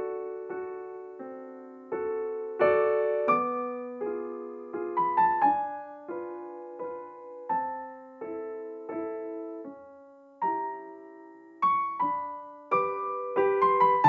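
Background piano music: a slow, gentle melody of struck notes and chords, each ringing and fading before the next.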